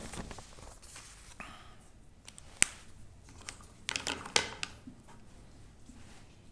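A few small clicks and rustles in a small room: one sharp click about two and a half seconds in, then a quick cluster of clicks and rustling about four seconds in.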